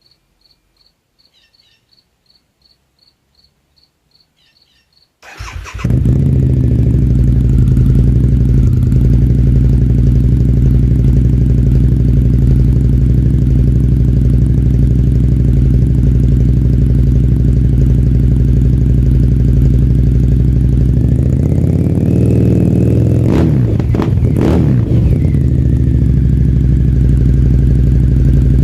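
Crickets chirping, then a Harley-Davidson V-Rod Muscle's V-twin on Vance & Hines pipes, still without quiet baffles, starts about five seconds in and idles steadily, revved up and back down a couple of times near the end.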